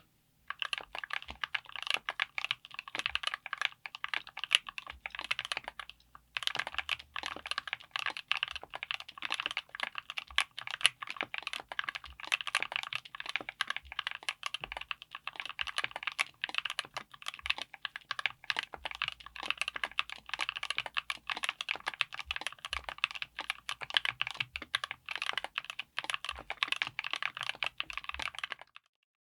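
Typing on a mechanical keyboard fitted with Gateron Smoothie Strawberry linear switches (full POM housing and stem) in an aluminium case with an FR4 plate: a fast, dense run of keystroke clacks, with a brief pause about six seconds in.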